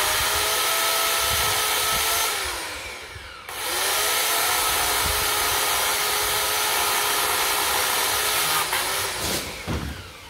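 Parkside 1400 W electric chainsaw cutting through a tree branch. The motor runs at full speed for about two seconds and winds down. It spins up again about a second later, runs steadily for another six seconds, and winds down near the end as the branch is cut off.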